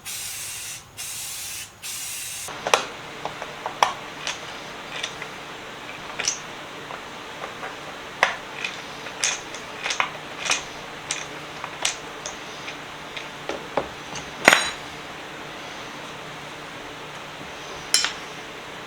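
Aerosol paint can spraying in a few short bursts for the first couple of seconds, then a run of scattered sharp clinks and light knocks.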